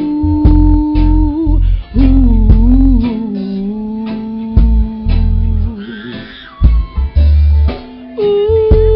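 Live music: a woman singing long, wavering held notes over plucked guitar and a heavy bass.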